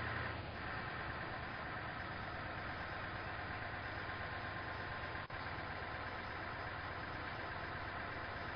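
An engine running steadily at idle, with a brief break about five seconds in.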